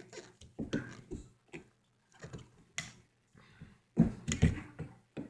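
A metal fork tapping and knocking at a coconut's hard shell, scattered single clicks with a louder run of knocks about four seconds in.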